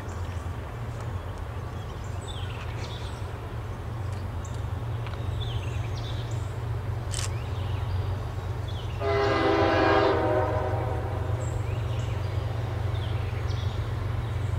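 A distant approaching train's diesel locomotive sounds one long horn blast, a chord of several notes, about nine seconds in and lasting about two seconds. A steady low rumble runs under it.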